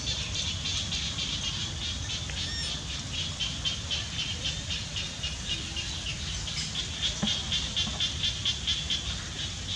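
Steady, rapid high-pitched chirping, about seven pulses a second, over a low, steady rumble.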